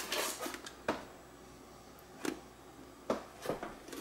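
Several light plastic clicks and taps, irregularly spaced, from hands handling the open bin and lid of an iRobot Roomba i7+ Clean Base after a disposal bag has been fitted.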